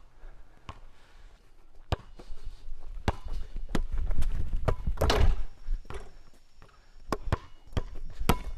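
A basketball bouncing on an asphalt court and sneakers stepping on the pavement, heard as a string of irregular sharp knocks, with a louder, longer thud about five seconds in.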